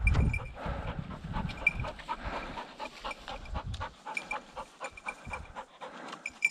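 English setter panting quickly, about three or four short breaths a second.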